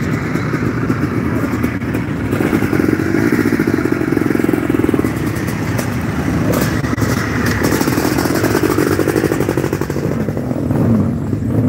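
Motocross motorcycle engines running, one bike passing close by about six seconds in.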